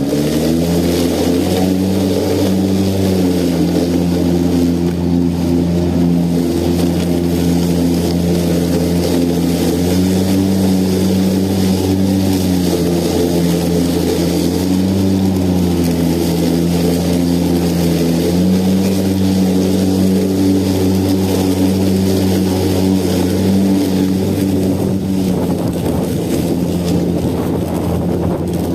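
Battery-powered lawn mower's electric motor and blade running steadily, its pitch dropping and rising back several times.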